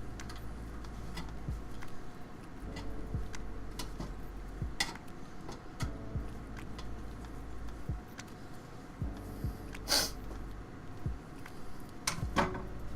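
Scattered light clicks and knocks from handling PC case parts, the loudest about ten seconds in, over a low steady hum.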